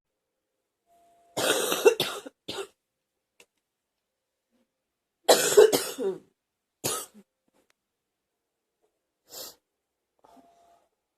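A girl coughing: two fits of several quick coughs about four seconds apart, then a single cough, and two fainter ones near the end.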